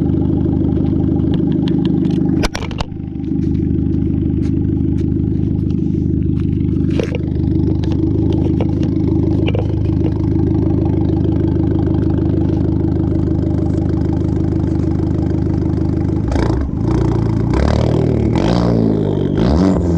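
2012 Fiat 500 Abarth's turbocharged 1.4-litre four-cylinder idling steadily through a sport cat and straight-pipe exhaust with no muffler, then given several quick revs that rise and fall near the end. The even idle shows the random misfire cured by the replacement ECU.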